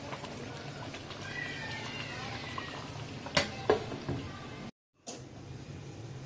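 Curry bubbling gently in a non-stick wok, then a glass lid set down on the pan with two sharp clinks a little past three seconds in. A faint falling high squeal comes earlier, and the sound cuts out for a moment near five seconds.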